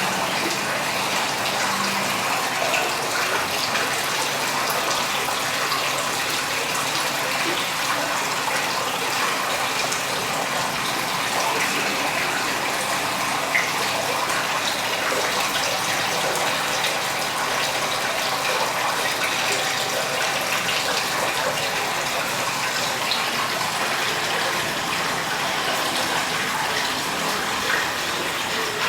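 Water of a small cascade fountain falling and splashing steadily.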